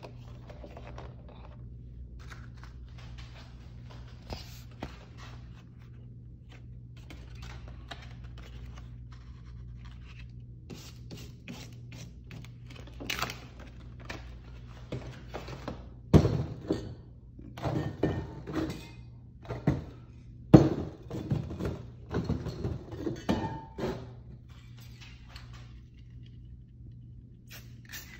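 Paper masks and magazine pages being handled and lifted off a spray-painted board on a tabletop: rustling and scraping, then a run of louder thunks and knocks about halfway through. A steady low hum runs underneath.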